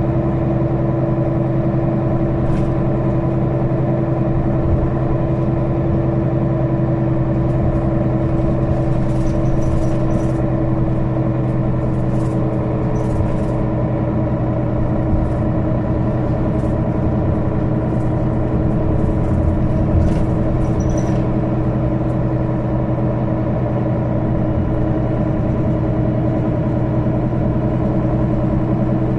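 Mercedes-Benz Citaro O530 city bus heard from inside the passenger cabin, its diesel engine running with a steady, unchanging hum. Scattered light clicks and rattles come through in the middle of the stretch.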